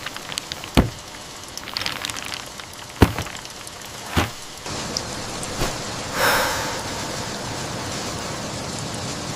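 Three sharp knocks in the first half, then steady rain setting in about halfway and running evenly, with a brief swell of louder noise a little later.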